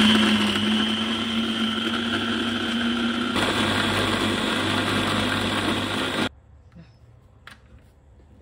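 Philips Avent baby food maker's blender motor running, puréeing strawberries, honey and Greek yoghurt. Its sound changes about three seconds in, and it cuts off suddenly about six seconds in, followed by a few faint knocks.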